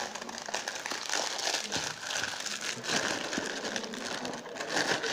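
Clear plastic wrapping crinkling and crackling as a hand handles it and pulls it away from a feature phone's retail box, in a continuous stream of small crackles.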